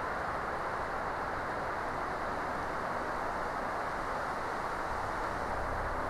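Steady rushing of wind through a spruce forest, with a low rumble coming in near the end.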